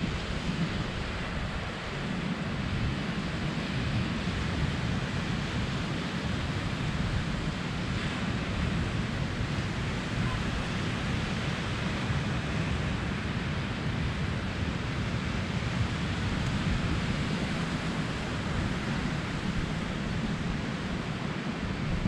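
Steady wash of surf breaking on a sandy beach, with wind buffeting the microphone as a low rumble.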